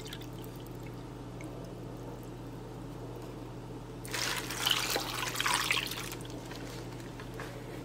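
Chicken broth poured from a plastic measuring cup into a plastic slow-cooker liner over frozen chicken breasts, trickling and dripping. The noise grows louder for about two seconds from about four seconds in as the cup is tipped right over, under a steady low hum.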